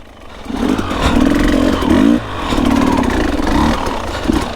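Dirt bike engine revving under hard throttle, building up from a quiet start, its pitch climbing about two seconds in, dropping sharply and then pulling steadily again.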